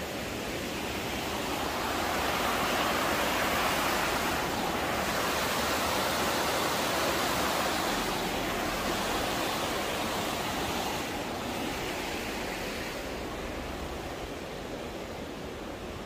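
Rushing water from a small cascade tumbling over rocks, a steady splashing rush that swells about two seconds in and fades over the last few seconds.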